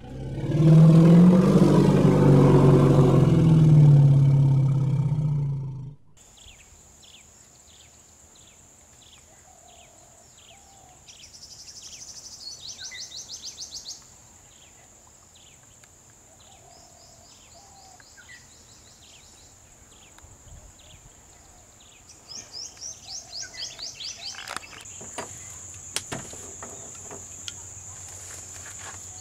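A loud, low, wavering roar-like call over the first six seconds, then outdoor wildlife ambience: birds chirping over and over at a steady pace, a steady high insect drone, and two bursts of fast trilling, one around twelve seconds in and one near the end.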